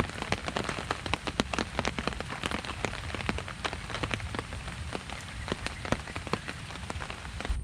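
Rain falling steadily, with many sharp, irregular drop hits on a nearby surface.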